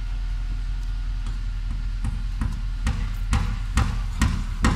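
Hammer striking wood: seven evenly spaced blows, about two a second, beginning about halfway through and growing louder. A steady low engine hum runs underneath.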